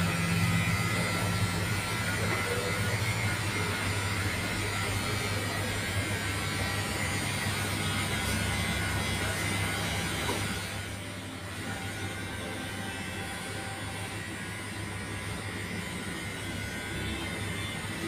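Electric hair clippers buzzing steadily. About ten seconds in the buzz drops away to a quieter, steady hum.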